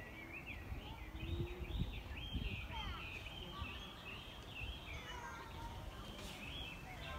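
Several wild birds singing and chirping at once, a dense run of quick, high, rising and falling notes.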